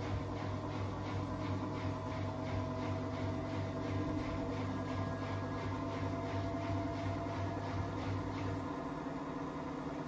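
Samsung 9 kg, 1400-spin front-loading washing machine running: a steady low hum with fainter tones above it and a light, regular ticking. The low hum cuts out about nine seconds in.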